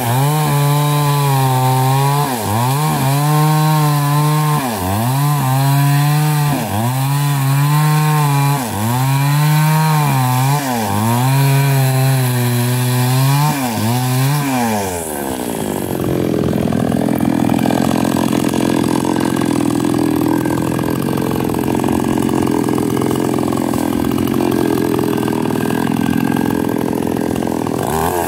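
Small two-stroke chainsaw cutting felled lame (Alstonia) logs: for the first half the engine note repeatedly dips and climbs back about every two seconds as the chain bites into the wood. About halfway through the pitch falls and the saw holds a steadier, rougher tone for the rest.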